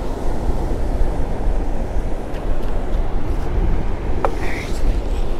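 Wind buffeting the microphone: a steady, gusting low rumble with one brief tick about four seconds in.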